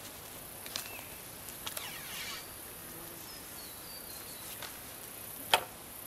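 Outdoor background of a steady, high insect trill, with a few faint bird chirps near the middle and a single sharp tap about five and a half seconds in.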